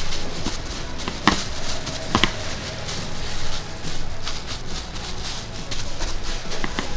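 Hands working pastry dough with a small rolling pin on a stainless-steel worktable, over a steady room hum, with two sharp taps a little over a second in and again near two seconds.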